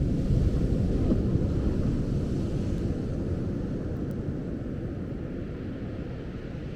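A wave breaking on the beach: a low, rumbling rush of surf that fades slowly over several seconds.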